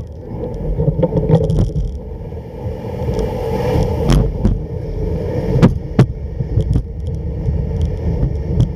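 Home-made kick sled's runners sliding over snow with a steady rumbling scrape, broken by a few sharp knocks in the second half.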